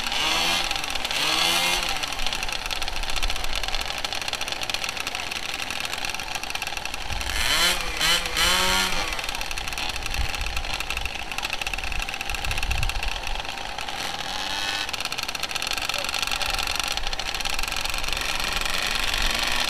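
Several small pocket bike engines idling on the starting grid and being blipped. Short bursts of rising and falling revs come about a second in and again around eight seconds in.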